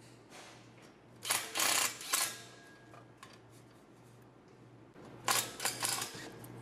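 Two short spells of clicking and rattling, about a second in and again about five seconds in, as the screws fastening the nameplate to the hitch cargo rack are driven in.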